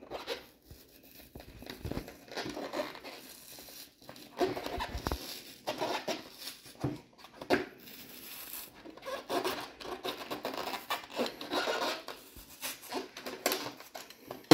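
A Mac Audio woofer's cone and surround being cut and torn open by hand to get at the voice coil: irregular scraping, rubbing and ripping of stiff cone material, in short uneven strokes.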